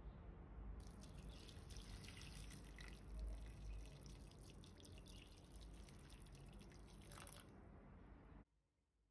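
Hot water poured from a plastic jug into a stainless steel pot of dry spaghetti and chopped vegetables: a steady splashing pour that starts about a second in and stops shortly before the end.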